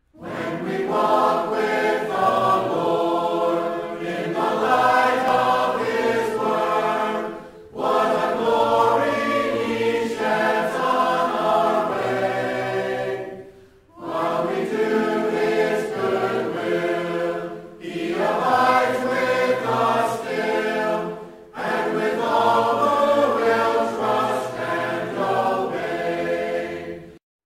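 A choir singing a hymn in long phrases, with short pauses between them, cutting off abruptly near the end.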